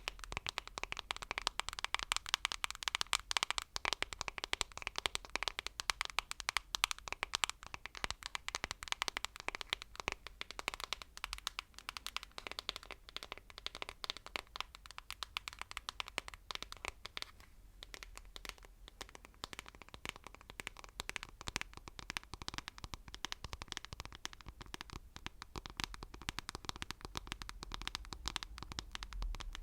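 Rapid, continuous ASMR tapping, many quick taps a second, with a short pause a little past halfway.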